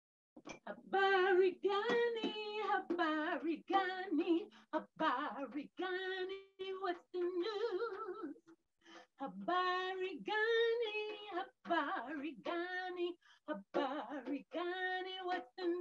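A woman singing solo and unaccompanied, in short phrases with held notes and a brief pause about halfway through.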